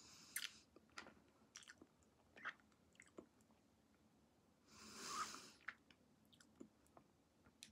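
Faint mouth sounds of a Toxic Waste sour hard candy being sucked and chewed: scattered small wet clicks, with one short breathy hiss about five seconds in.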